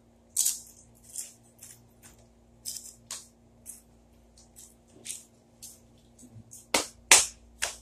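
Ghost pepper chips and their bag handled and eaten: a string of short, sharp, irregular crinkling and crunching sounds, the loudest two near the end.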